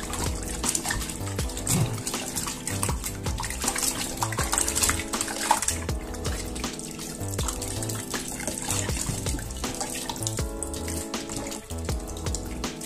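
Water splashing and sloshing in a stainless steel bowl as raw offal is squeezed and rinsed by hand under a running tap. Background music with a steady beat plays throughout.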